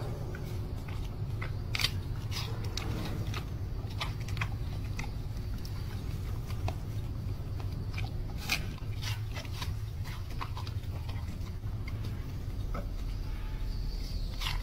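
Giant panda chewing and biting food, with irregular crisp crunches throughout; two louder crunches come about two seconds in and about eight and a half seconds in.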